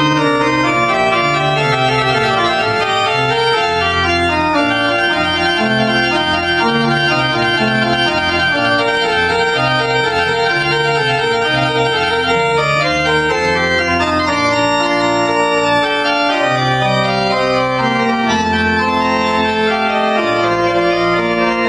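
Pipe organ being played: full chords held and changing over a moving bass line.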